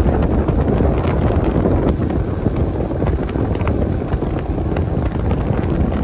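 Wind buffeting the microphone on a bass boat running across open water, over the steady noise of the boat underway.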